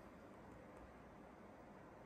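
Near silence: faint, steady room tone with no distinct events.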